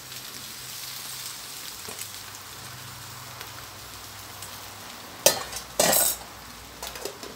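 Egg, pork and freshly added cabbage and greens sizzling in lard in a stainless-steel wok over a gas burner. About five seconds in there is a sharp clack, then a louder clatter half a second later.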